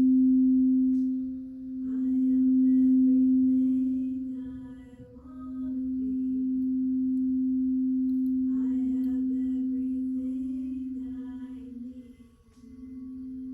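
Singing bowl sounding one steady low tone that swells and fades in slow waves, dipping almost away a few times, with fainter higher ringing tones coming and going above it.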